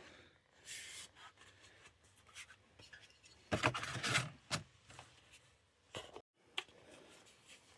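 Handling noise: rubbing and scraping with a few sharp clicks as the rifle and its packaging are moved about.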